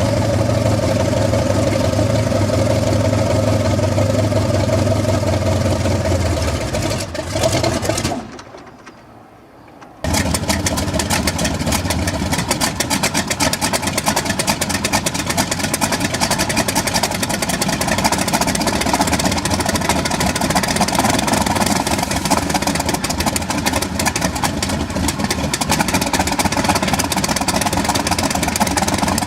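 Helicopter engine running steadily. Around eight seconds in the sound drops away for about two seconds, then a different helicopter engine runs with a dense, rapid chatter.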